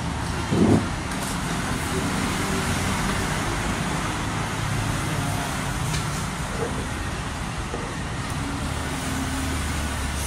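Steady street traffic noise, with a brief loud thump about half a second in.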